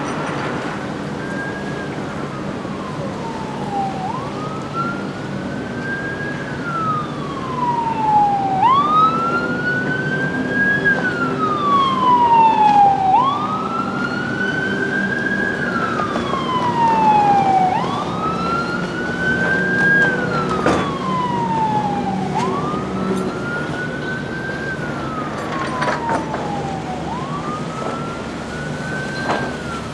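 A wailing siren sweeps up quickly and falls slowly, repeating about every four and a half seconds. A second, higher siren overlaps in the middle, and a steady low engine rumble runs beneath.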